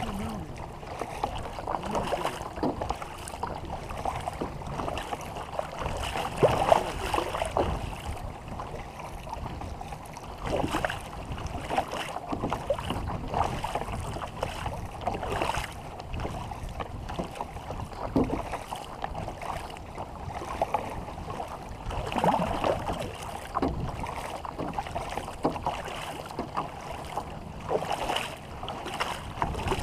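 Canoe paddles dipping and splashing in the water as a war canoe is paddled, with irregular splashes every couple of seconds and wind on the microphone.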